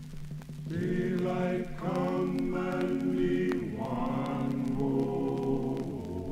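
A vocal chorus singing the song's closing refrain as a few long held chords, coming in after a brief pause about a second in.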